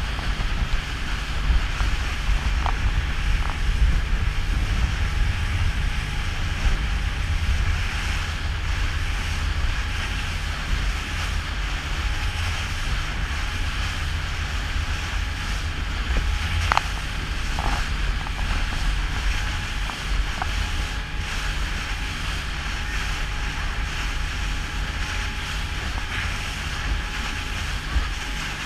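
Motorboat under way: its engine running with a steady low drone, under the rush of water along the hull and wind on the microphone.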